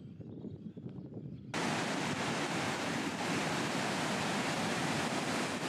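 Faint outdoor ambience, then an abrupt switch about one and a half seconds in to a steady, loud rushing noise.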